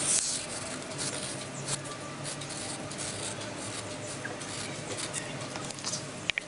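Pencil scratching across a sheet of paper as it draws, in short, irregular strokes.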